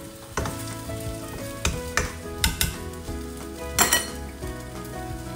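Rice and diced carrots frying in a hot stainless steel pan, a steady sizzle broken by several sharp crackles, the loudest about four seconds in.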